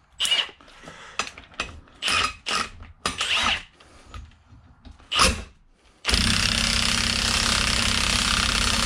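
Metal clicks and clatter as a ball joint press is fitted over a new axle stud. About six seconds in, an impact wrench starts running steadily, driving the press to pull the stud into the Dana 44 axle flange.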